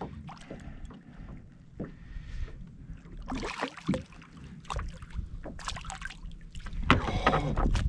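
Kayak sounds: a low, steady wind rumble on the microphone, with scattered small knocks and a brief hiss about three and a half seconds in. The sound grows busier and louder near the end.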